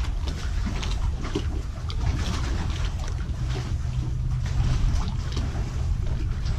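Wind rumbling on the camera microphone, with faint water lapping and splashing around the pier's pylons.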